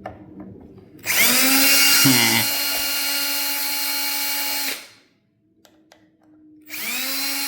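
Electric drill/driver used on a screw: the motor spins up with a rising whine about a second in and runs steadily for nearly four seconds, then stops, and a second shorter run starts near the end.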